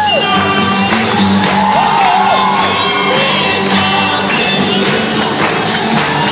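Live acoustic string band playing: fiddle, cello and guitar together, with sliding fiddle or vocal lines, recorded from the audience in a large hall with crowd noise.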